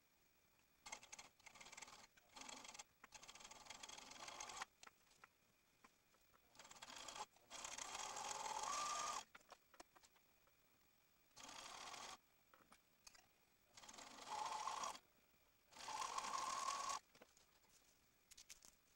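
Serger (overlocker) running in several short bursts, each about a second long, starting and stopping with quiet pauses between.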